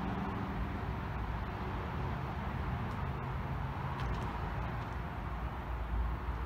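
Steady ambient rumble and hiss with no distinct event, only a few faint ticks about three to four seconds in.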